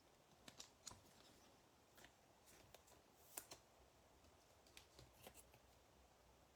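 Near silence with faint, scattered clicks and light rustling: baseball trading cards being flipped through and handled.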